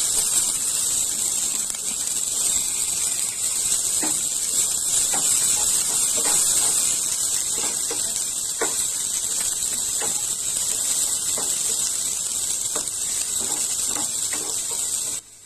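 Sliced onions sizzling in hot oil in a kadai, a loud steady hiss, with a spatula scraping and tapping against the pan now and then as they are stirred. The sizzle cuts off suddenly near the end.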